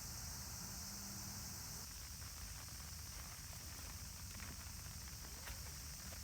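Steady rain falling, a soft even hiss with a few scattered drip taps in the second half.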